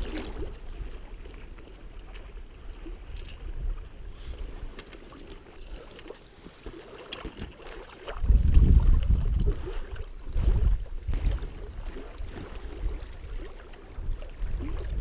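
A small inflatable PVC fishing raft being rowed across a lake: oar strokes and water sloshing against the raft. The low rumbling grows heavier and louder from about halfway through.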